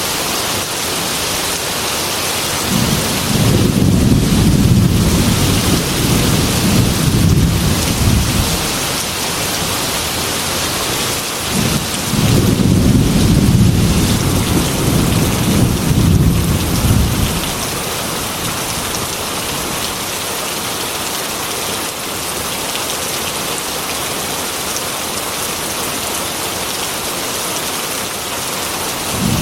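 Heavy rain falling steadily on a metal roof, with two long rolls of thunder, the first about three seconds in and the second about twelve seconds in, and a third beginning right at the end.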